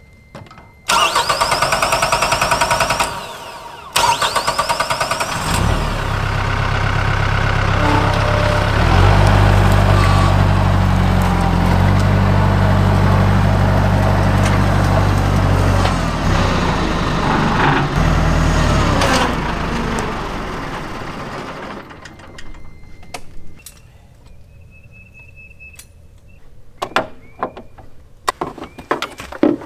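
Mahindra compact diesel tractor engine revving up and running under load while the front loader pushes brush, its pitch stepping up and down. The engine sound fades out about twenty seconds in, leaving a few light metallic clicks and clanks.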